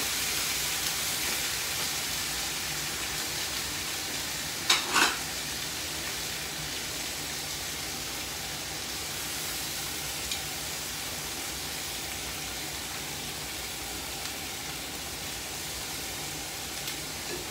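Slices of pork bistek sizzling steadily in a frying pan, slowly easing off. Two sharp knocks come close together about five seconds in, from utensils against the pan.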